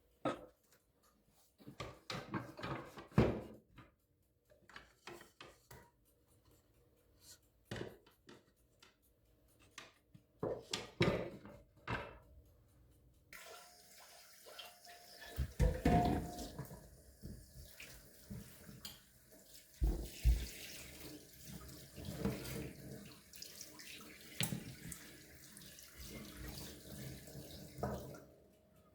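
Things being handled with scattered knocks and clatter. About halfway through, a kitchen tap is turned on and runs into the sink, with more clatter, as something is rinsed. Near the end it is turned off abruptly.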